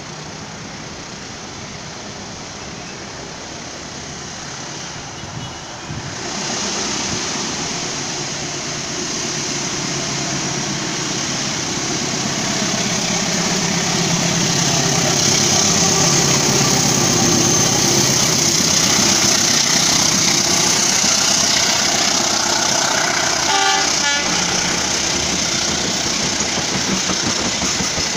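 Diesel locomotive hauling a long-distance passenger train approaching and passing at speed, its engine and wheels on the rails growing louder from about six seconds in and loudest in the middle, then the coaches rolling by steadily. A brief horn toot sounds near the end.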